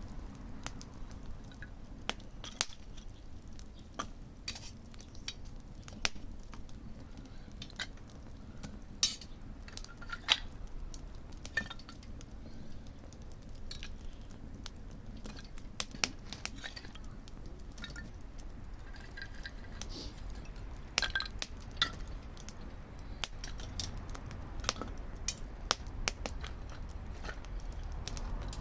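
Wood fire crackling: irregular sharp pops and snaps, some louder than others, over a low steady rumble.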